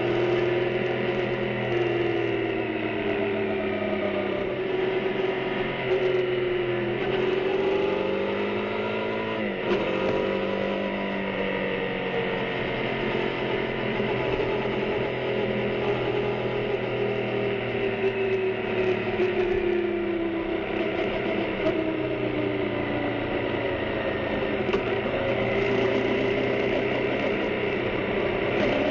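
CFMoto 450NK parallel-twin engine through its stock exhaust while riding, the revs rising and falling again and again, with a quick drop and climb in pitch about ten seconds in.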